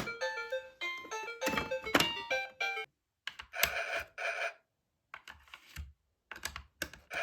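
Children's toy cash register playing a short electronic tune. Then come two brief electronic sounds from the toy, and scattered clicks of its plastic buttons and parts.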